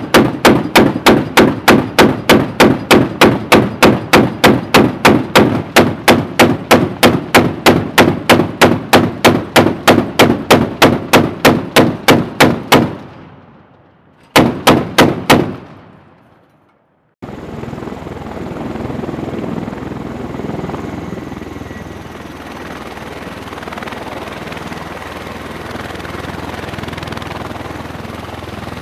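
Mark 38 25 mm chain gun firing single rounds in a long, even string, about three shots a second for some thirteen seconds, then about five more shots after a short pause. From about seventeen seconds in, a steady noise of a CMV-22B Osprey tiltrotor's engines and rotors running.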